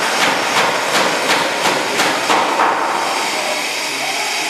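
Repeated sharp knocks, about three a second, over a steady hiss; they stop about three seconds in.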